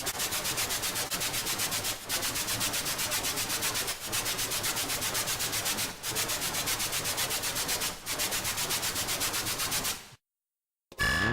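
Elektron Analog Four analog synthesizer playing a noise-based preset: a hissing white-noise sound chopped into fast, even pulses about eight a second, repeating in phrases of about two seconds, then stopping. Right at the end a new pitched synth patch starts, gliding up in pitch.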